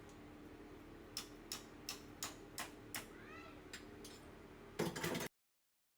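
A run of about seven sharp clicks or taps, roughly two a second, over a low steady hum, with a faint high chirp among them. Near the end comes a short louder rustle or clatter, then the sound cuts off.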